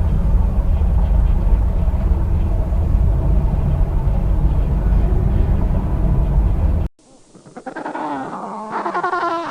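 A large animal's low, rough growl lasting about seven seconds and cutting off suddenly. It is followed near the end by a different animal's higher, wavering calls.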